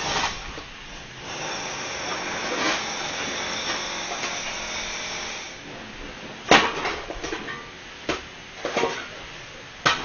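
Power tool, a drill or breaker working on the building, running steadily for the first half and then stopping. It is followed by a few separate sharp knocks.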